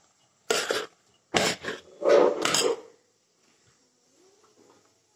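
Metal spoon scraping the inside of a steel pot, three strokes about half a second to a second long in the first three seconds, then nearly quiet.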